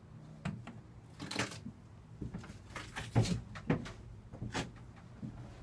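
A string of irregular knocks and taps, with a few short scraping rustles in between. The loudest knock comes a little past the middle.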